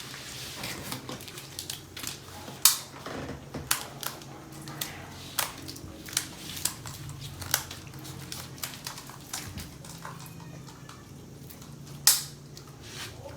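Irregular clicks and taps from plastic toy parts and packaging being handled and fiddled with, with two sharper knocks, one about two and a half seconds in and one near the end, over a faint low hum.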